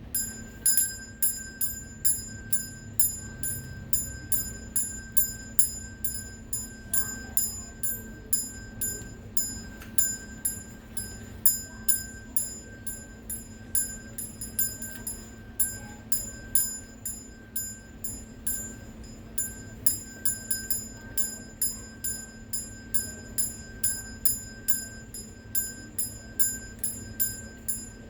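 A small high-pitched bell struck over and over in a fast, even rhythm, about two to three strikes a second, over a steady hum.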